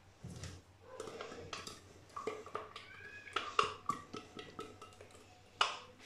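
Blender jar knocking and clinking against a glass bowl as thick cake batter is poured and shaken out of it: a string of light, irregular knocks.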